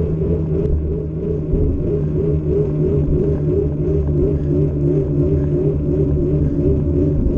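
Steady low rumble from a bicycle rolling over asphalt: tyre noise and wind on the camera's microphone, with a hum that wavers up and down in a regular rhythm.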